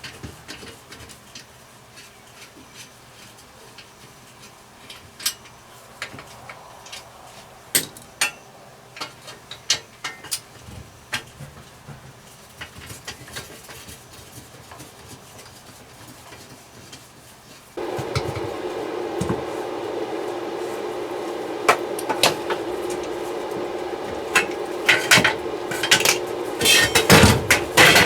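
Scattered metallic clinks and taps as a stainless steel washing-machine drum is worked on, then about two-thirds in a power tool starts abruptly and runs steadily, with metal clatter over it.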